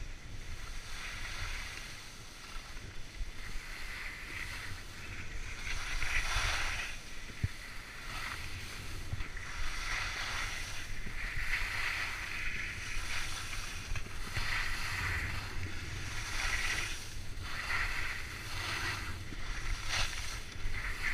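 Skis scraping and swishing on firm groomed snow, a hiss rising with each turn about every one to two seconds, over a steady low rumble of wind on the microphone.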